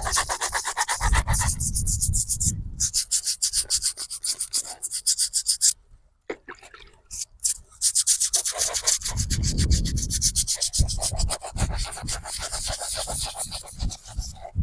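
A hand scraper scraping grime off a headstone in quick, repeated strokes. It stops briefly about six seconds in, then the scraping starts again.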